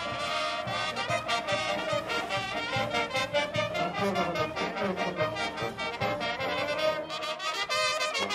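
A brass band playing, trumpets and trombones over a steady drum beat.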